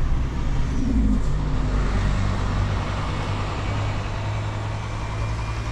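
A motor vehicle passing close by: its engine runs low and steady, and its tyre noise swells and then fades.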